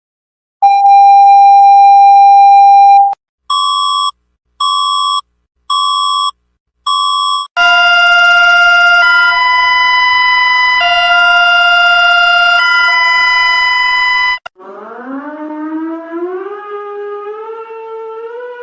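Loud electronic emergency-alert tones: a steady beep about two and a half seconds long, then four short beeps about a second apart, then a two-tone chord switching back and forth every second or two for about seven seconds, then a siren-like tone rising slowly in steps.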